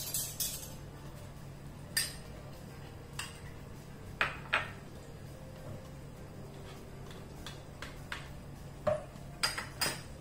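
A plastic spatula and spoon knocking and scraping against a nonstick frying pan while butter is pushed around in it. There are scattered clinks, about eight in all, the loudest near the start, around four seconds in, and near the end, over a steady low hum.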